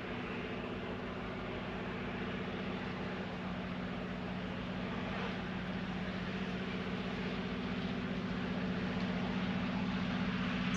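The diesel engines of a rotary snowplow train run with a steady low drone under a dense rushing noise as it blows snow aside. The sound grows slowly louder.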